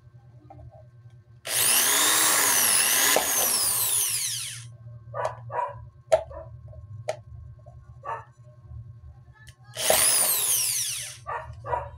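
Electric hand drill running twice, first for about three seconds and then for about a second and a half, its whine rising and dipping in pitch as it bores through a plastic bottle.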